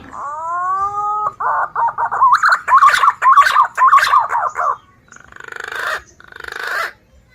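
Young green pigeon (punai) chick calling: a rising drawn-out note, then a quick run of short chirps, then two harsh, buzzing calls near the end.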